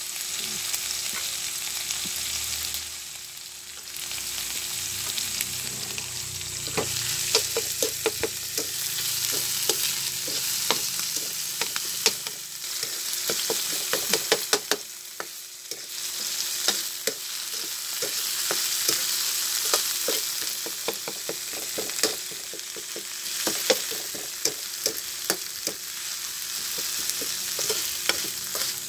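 Pork fat, onion, garlic and alamang (fermented shrimp) sizzling in hot oil in a wok, with a metal spatula repeatedly scraping and clicking against the pan as the mixture is stirred.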